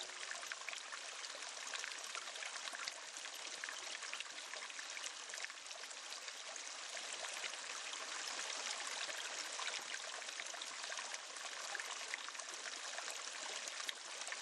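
Steady trickling and splashing of water circulating through a marine aquarium's rear overflow filter chambers, a constant hiss dense with fine crackles.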